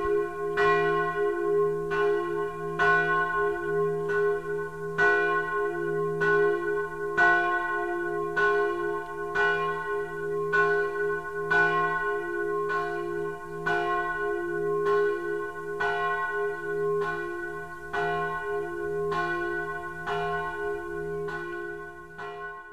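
Church bells ringing, struck over and over in quick succession, each stroke ringing on into the next over a steady low hum; the ringing fades out near the end.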